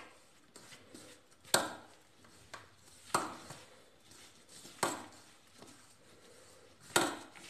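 Hand mixing flour and warm milk into dough in a stainless steel bowl, with four sharp knocks against the bowl, about a second and a half apart, each with a short metallic ring.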